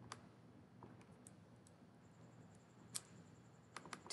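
A few faint, sharp computer mouse clicks, scattered, with the loudest about three seconds in and a quick cluster near the end, over a low steady hum.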